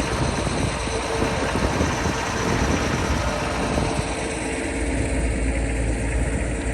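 Off-road 4x4's engine running under load, with a wide noisy rush over it. The low rumble grows heavier about five seconds in.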